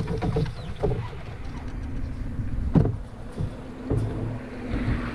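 Wind rumbling on the microphone of a camera mounted on a moving canoe, with three sharp knocks on the hull. Water swishes near the end.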